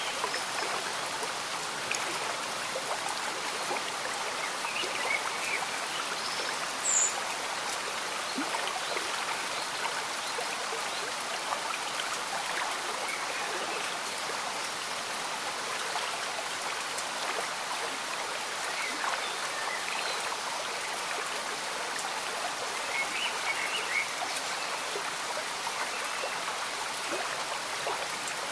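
A slow-moving stream bubbling steadily under gentle rain. Short, high animal calls chirp now and then, one briefly louder about seven seconds in.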